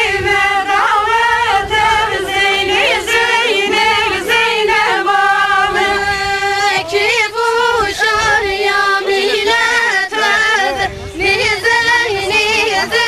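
Women singing a folk song for a line dance, unaccompanied, in long held notes with ornamented turns.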